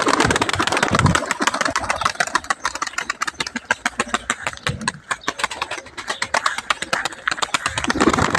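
An engine running steadily with a rapid, even putter.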